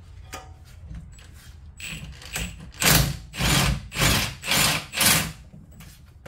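Impact wrench run in five short bursts, starting about three seconds in, working a control-arm fastener loose. A few light clicks of tool handling come before it.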